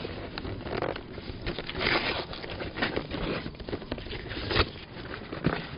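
Gift-wrapping paper crinkling and tearing as a wrapped box is pulled open by hand, in irregular rustling bursts.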